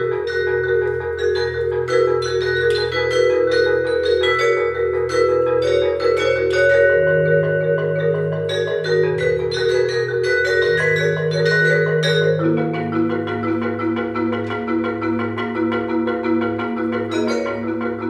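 Two marimbas and two vibraphones playing fast interlocking repeated patterns over a low marimba line. The harmony shifts about twelve seconds in, to a new chord with a lower bass.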